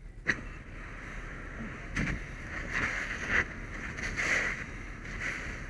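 Fire hose nozzle spraying water onto burning debris: a steady rushing hiss that surges louder several times, with a sharp click under a second in.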